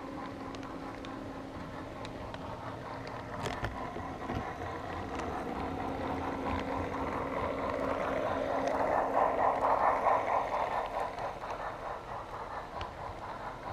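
HO-scale model train running on its track: a steady motor hum and wheels rolling on the rails, with scattered sharp clicks. The rumble swells to its loudest about two-thirds of the way through, then eases off.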